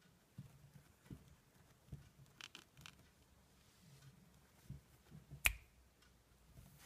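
Quiet sounds of two Cavalier King Charles Spaniel puppies wrestling on a blanket: soft scuffles and light thumps. There is one sharp click about five and a half seconds in.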